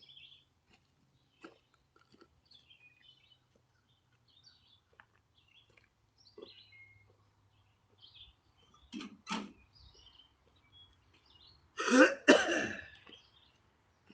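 A person coughing: a short double cough about nine seconds in, then a louder double cough near the end. It is a lingering cough left over from Covid.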